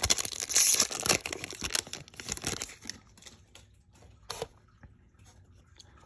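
Foil wrapper of a Panini Prizm baseball card pack being torn open and crinkled, loud for the first few seconds. It then fades to faint rustles, with one brief louder rustle a little after four seconds in.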